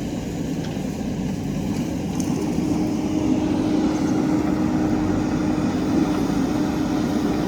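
JCB backhoe loader's diesel engine running steadily, a continuous drone that grows slightly louder about three seconds in.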